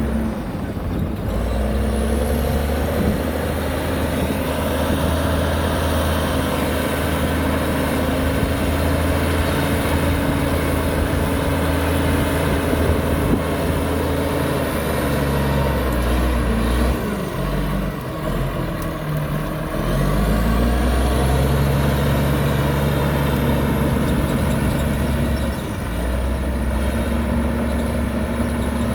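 Heavy diesel engine of earthmoving machinery running steadily under load. Its speed drops about 17 seconds in and picks back up about 20 seconds in.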